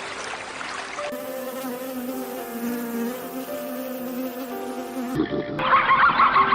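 A flying insect buzzing steadily over soft background music; about five seconds in the clip changes and a different animal's rapid, repeated calls begin.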